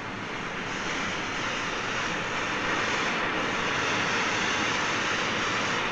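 Steady hissing roar of an automatic gas cutting machine's torch, its jet of gas and flame cutting through thick steel plate.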